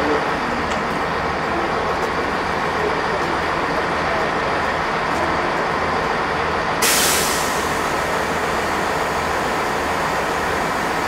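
South Western Railway Class 450 electric multiple unit running into the platform, a steady rumble. About seven seconds in, a sudden burst of hissing air, fading over about a second.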